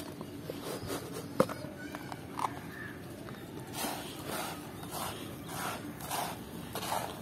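A hand stirring and scraping a gritty mix of ash, crushed laterite, rock salt, eggshell and sand around a shallow tray. It starts with a single sharp click, then from about halfway there are soft rasping strokes, about two a second.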